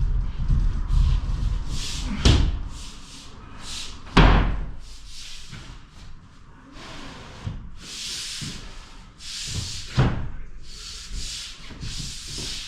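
Hand saw cutting through plasterboard in short rasping strokes, about two a second, with three sharp knocks as the board is handled.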